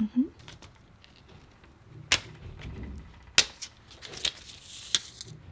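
Sharp clicks and taps from handling a phone fitted with a screen protector in a plastic alignment frame: four separate clicks spread over a few seconds, with a short hiss around the last one.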